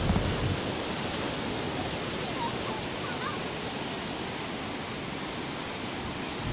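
Sea surf: small waves breaking and washing in a steady rushing hiss, with a few faint high chirps about midway through.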